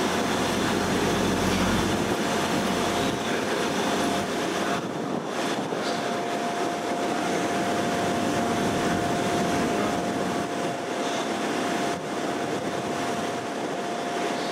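Trains at a station platform: a Class 153 diesel railcar's low engine rumble fades over the first couple of seconds. Then a Great Western Railway Class 800 Intercity Express Train is arriving, with a steady high tone running through it.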